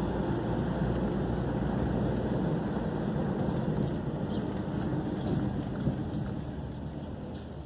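Steady low rumble of a car's engine and tyres heard from inside the cabin while driving slowly, growing a little quieter near the end.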